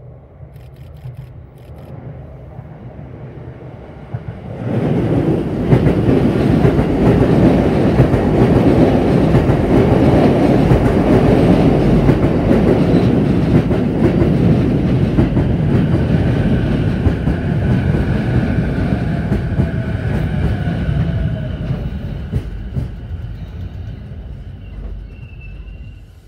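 Sotetsu 11000 series ten-car electric train approaching and running past close by, its wheels clattering over the rails. The noise comes up suddenly about five seconds in, holds, then dies away near the end, with a faint falling whine as the train moves off.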